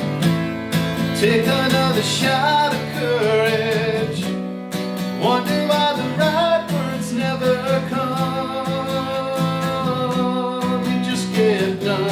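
A guitar strummed steadily under a singing voice, which holds one long note about two-thirds of the way through.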